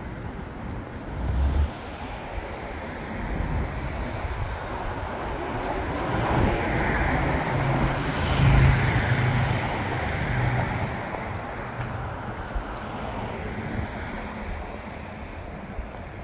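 Street traffic: a car passes close by, its tyre and engine noise swelling to a peak about eight seconds in and then fading. A brief low thump of wind on the microphone comes about a second and a half in.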